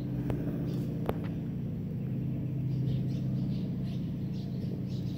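Short, high chirps from a flock of birds circling overhead, scattered through the clip and coming more often in its second half, over a steady low hum.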